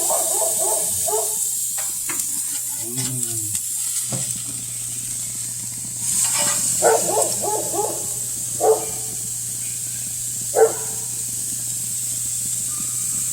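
Chicken sizzling on the grates of a propane grill with a steady hiss, while a dog barks and yelps a few times: a short cluster past the middle, then two single sharp barks later.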